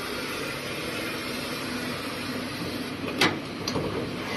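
Steady, muffled running noise of an automatic circular seam welding machine inside its closed enclosure, with a sharp click about three seconds in and a couple of lighter clicks as the enclosure door's latch handle is worked.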